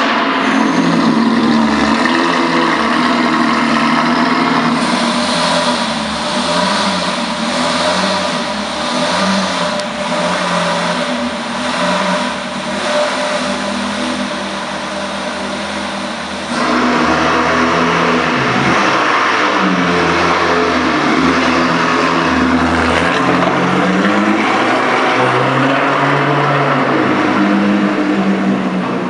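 Novitec Rosso Ferrari California's V8 running loudly while parked, its pitch rising and falling unevenly as the throttle is blipped. About 16 seconds in, a louder hiss-like noise comes in over the engine and stays.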